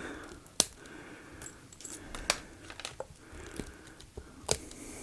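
Plastic cable ties being cut: several sharp snaps and clicks, the three loudest about half a second, two seconds and four and a half seconds in.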